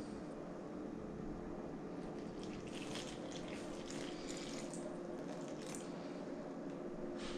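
Water poured in short spells from a glass measuring cup into a steel bowl of flour, splashing and trickling between about two and six seconds in, over a steady low hum.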